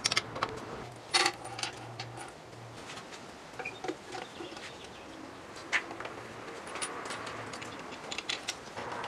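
Scattered sharp metallic clinks and taps of a wrench, nuts and washers on a wooden workbench as bench-mounting hardware is fitted: a bolt being snugged down, then an electric motor set on the bench and its mounting bolts started.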